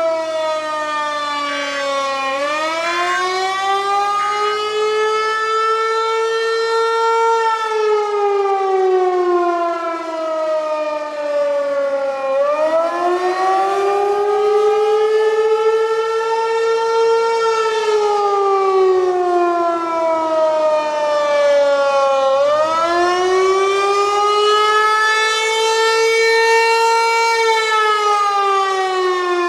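Federal Signal 508 outdoor warning siren sounding for a tornado warning. Its pitch rises and falls in slow cycles of about ten seconds.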